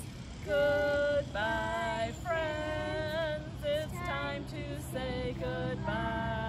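Goodbye song sung by a woman with young children joining in, in slow, long held notes with short breaks between phrases.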